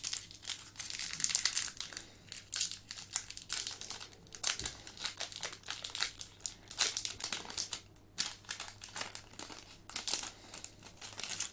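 Foil wrapper of a Pokémon booster pack crinkling in the hands as it is worked open, with irregular crackles throughout.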